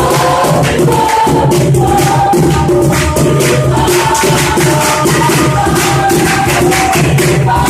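Church choir singing a worship song in unison, with percussion keeping a steady beat.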